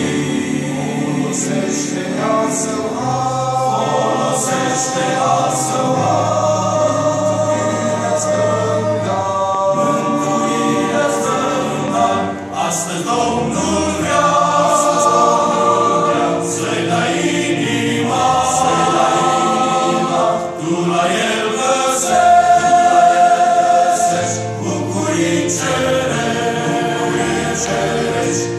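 Mixed church choir of men and women singing a hymn in harmony with long held notes, accompanied by keyboard.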